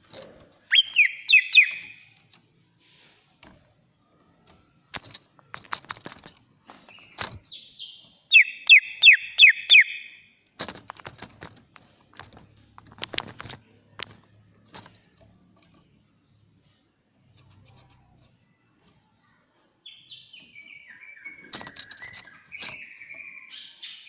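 Cucak ijo (green leafbird) singing in shrill bursts. Quick series of downward-sweeping notes come about a second in and again around eight to ten seconds, with scattered sharp clicks between them and a wavering, chattering phrase near the end.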